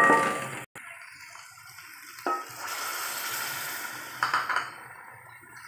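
Frying dal and chicken masala in a steel pot sizzles as water is added and is stirred with a wooden spatula. A few knocks of the spatula against the pot ring out, one at the start, one about two seconds in and one around four seconds, with a steady sizzling hiss between the last two.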